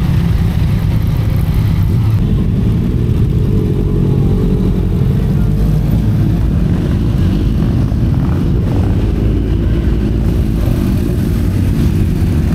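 Several large motorcycles riding slowly past in a convoy, their engines running with a deep, steady drone, the pitch now and then rising and falling as riders open and close the throttle.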